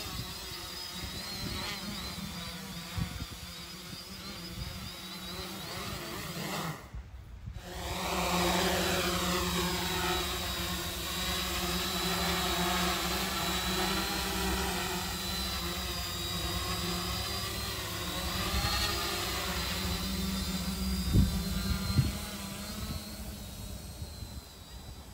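A DIY quadcopter's brushless motors and propellers buzz as the drone hovers and flies, the pitch rising and falling as the motor speeds change. The sound drops out briefly about seven seconds in, and there are two short thumps near the end.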